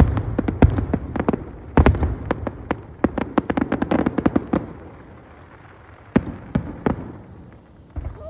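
Fireworks display: a rapid volley of aerial shell bursts and crackling reports, thinning out after about four and a half seconds to a few scattered bangs.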